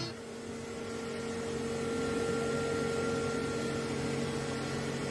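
A steady mechanical hum with several held tones over an even hiss, from a motor running without change.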